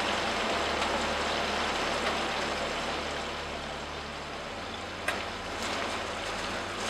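Steady rushing background noise of a working kitchen, with a light tap about five seconds in.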